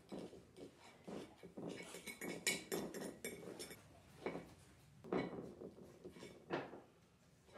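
Faint, scattered clinks, taps and scrapes of painting tools being handled and worked on a palette, with a few louder knocks.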